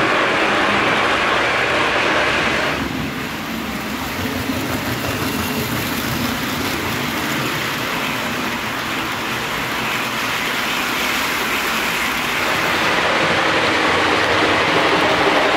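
S gauge model steam train, the Lionel-American Flyer Blue Comet 4-6-2 pulling heavyweight passenger cars, running steadily on the layout's track. The sound is a continuous rolling rumble of wheels and motor. It drops a little about three seconds in and grows louder near the end as the locomotive approaches.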